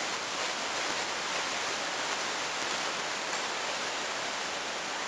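Steady, even hiss of room background noise in a classroom, with no distinct events.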